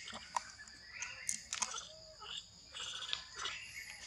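Steady high-pitched insect drone, with scattered sharp clicks and short squeaky chirps over it and one faint brief call about two seconds in.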